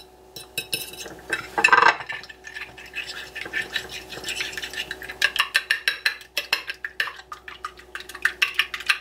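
Two raw eggs being beaten with a metal fork in a ceramic plate: the fork clicks and scrapes against the plate in quick strokes that become faster and more regular about halfway through.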